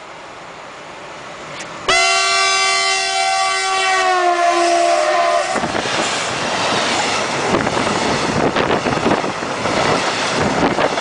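A DB class 185 electric locomotive blows its loud two-tone horn for about three and a half seconds as it passes, the pitch dropping slightly partway through. The horn cuts off and the freight wagons carrying lorry trailers roll by close up with a loud rushing and clattering.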